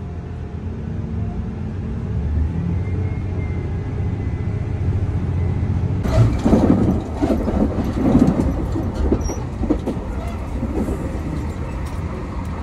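Running noise inside a KiHa 283 series diesel railcar on the move: a steady low rumble of engine and wheels. About halfway through it turns suddenly louder and rougher with irregular knocks, then eases again.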